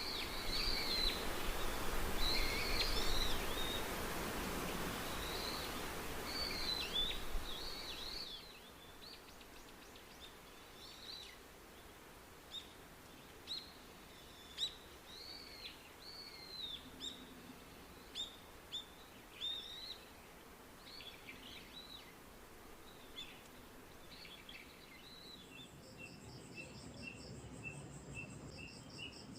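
Birds chirping in short, quick, up-and-down calls. For about the first eight seconds a steady rushing noise runs under them and then cuts off suddenly. Near the end, a rhythmic pulsing insect trill, like crickets, begins.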